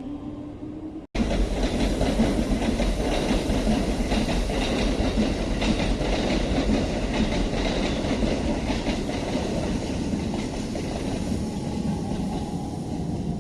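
Electric commuter train passing at speed, its wheels clacking over rail joints above a low rumble. It cuts in suddenly about a second in and slowly fades toward the end.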